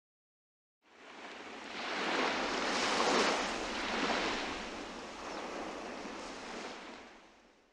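Ocean surf: a single rushing wash of a wave that swells up over about two seconds, then slowly fades out.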